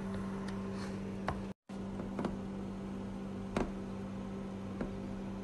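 Steady low electrical hum with a few faint clicks and taps from handling plastic containers and a scoop, cut by a brief silent dropout about one and a half seconds in.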